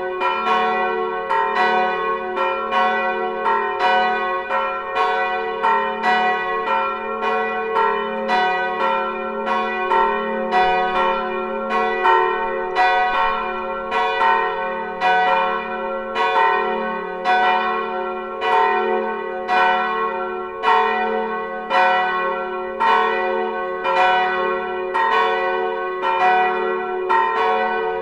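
Swinging church tower bells ringing together in a peal, the bells among them tuned to F sharp and A sharp. Their strokes come close together, about two a second, and each rings on into the next, with a steady hum underneath.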